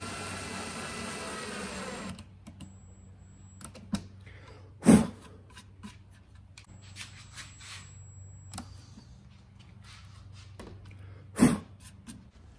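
Ryobi cordless drill driving a screw into a speaker cabinet's front panel for about two seconds, its motor whine wavering in pitch. Then scattered handling clicks on the cabinet and two loud knocks, one about five seconds in and one near the end.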